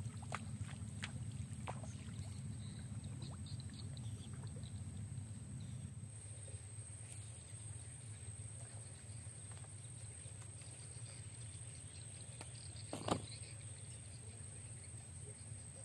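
Low, steady outdoor rumble that eases about six seconds in, with a few faint clicks near the start and one sharp knock about 13 seconds in.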